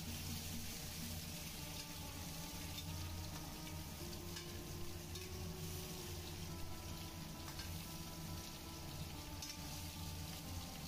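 Stuffed tinda (round Indian gourds) frying in oil in a metal kadai, sizzling steadily, with a few light knocks of a metal spatula as the gourds are turned. A steady low hum runs underneath.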